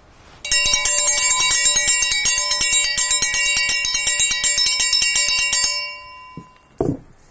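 A metal bell rung rapidly and continuously, about ten strikes a second, for about five seconds, then left to ring out.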